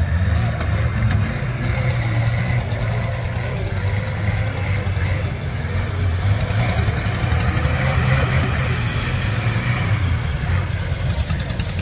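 Small garden tractor's engine running steadily under load as it drives over dirt mounds.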